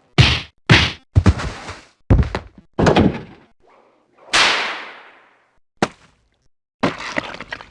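A run of separate impact sound effects: five quick thuds and whacks about half a second to a second apart, then a longer crash that dies away over about a second, a single sharp click, and another hit near the end.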